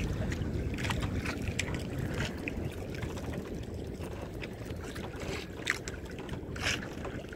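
Steady low wind-and-water noise on a small fishing boat at sea, with scattered light clicks and taps.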